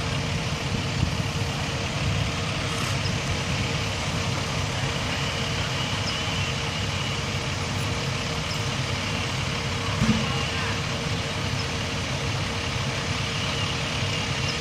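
Fire trucks' diesel engines running steadily to drive their water pumps: a continuous low rumble with a steady hum above it. A short thump about ten seconds in.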